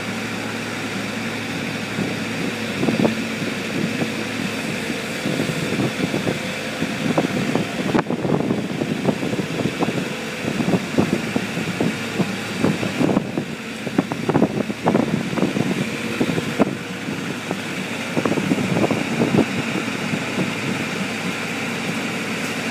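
Steady running of a site engine, with a dense run of irregular knocks and rattles over it from about two seconds in until near the end.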